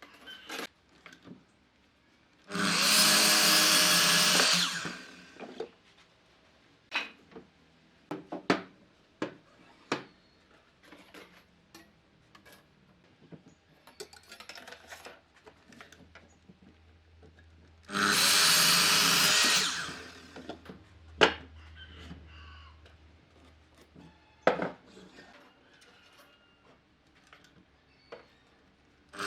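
A power tool runs for about two seconds, about three seconds in and again about eighteen seconds in. Between the runs come scattered sharp clicks and knocks of wood and tools being handled.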